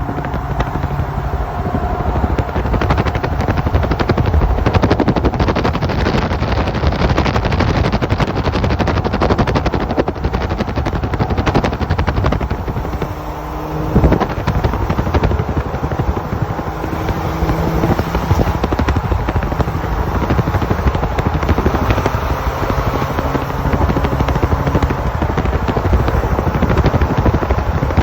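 Loud wind buffeting the microphone of a moving supercharged 2006 Jeep Wrangler Unlimited, a rapid fluttering rush with the engine's steady drone underneath. The wind eases briefly about halfway through, then comes back with a sharp thump.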